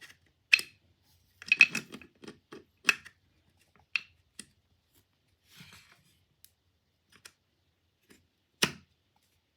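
Sharp metal clicks and knocks as the parts of a Stanley hand plane are handled, with the blade being fitted and its lock tried. A quick cluster of clicks comes about a second and a half in, then single clicks, and one sharp knock near the end.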